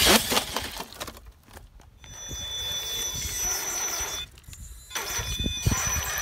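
Radio-controlled truck driving through mud: wet mud splattering at first, then its electric motor whining in steady high tones as the muddy tyres spin and churn the mud, cutting out briefly twice.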